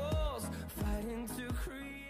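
Background music with a melody over a steady bass, gradually getting quieter.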